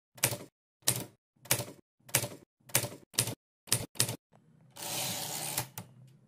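Typewriter key strikes: eight sharp clacks, about one every half second, followed by a rushing sound about a second long that ends in two quick clicks.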